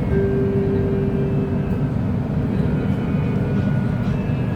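KTM Komuter electric commuter train running, heard from on board as a steady low rumble. A single steady hum tone sounds for about the first two seconds, with fainter high-pitched tones later on.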